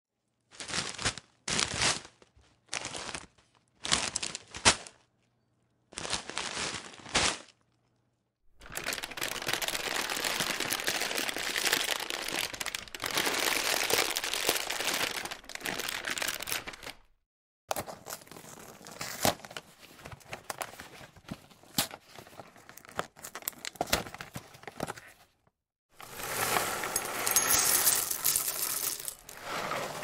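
A box of cornflakes handled in about five short bursts, then a longer unbroken stretch of box sounds; next the box is opened with scattered tearing and crinkling; from about 26 seconds in, cornflakes are poured onto a plate in a steady stream.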